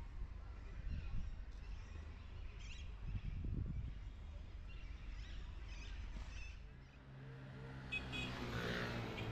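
Outdoor city street ambience: a steady low traffic rumble with short bird chirps now and then. In the last couple of seconds a low pitched hum comes in and the sound gets busier.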